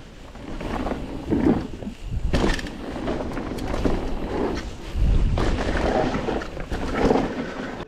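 Mountain bike ridden fast down a dirt jump trail: wind rushing on the microphone with tyres on dirt and the bike rattling, surging louder about two and five seconds in.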